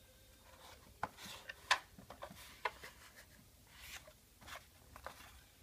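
Corrugated cardboard of a DIY VR viewer being folded and handled: irregular rubbing, scraping and small clicks of the flaps, starting about a second in.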